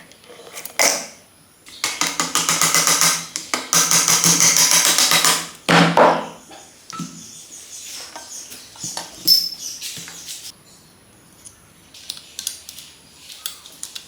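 Hand tools working on metal motorcycle engine parts: clinks and knocks, with two long bursts of rapid, evenly repeated rattling a couple of seconds in, a loud knock about six seconds in, then scattered lighter clinks.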